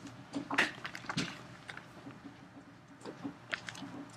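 Quiet classroom room tone with a few soft clicks and rustles and a faint low murmur in the background.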